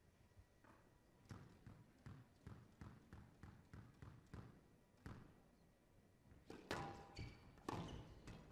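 A squash ball bounced repeatedly on the court floor, about two to three soft knocks a second, before the serve. Near the end the rally starts: sharper cracks of the ball off racket and walls, with a few squeaks of court shoes on the wooden floor.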